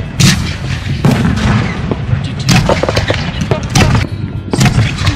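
Professional fireworks display going off: a series of sharp, loud bangs, about seven in five seconds at irregular spacing, over a continuous low rumble.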